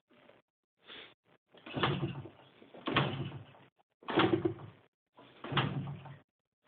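Cold two-stroke motorcycle engine being started, turning over and sputtering briefly in several separate attempts without catching: hard starting when cold.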